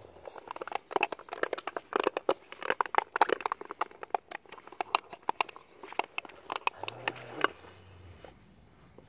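Plastic bottle crinkling and crackling as dogs chew and tug at it: a quick run of sharp crackles, busiest in the middle and dying down near the end.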